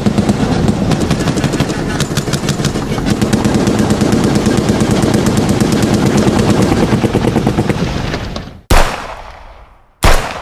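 Machine-gun fire sound effect: a rapid, continuous stream of shots for about eight seconds. It is followed near the end by two single loud bangs about a second and a half apart, each trailing off in an echo.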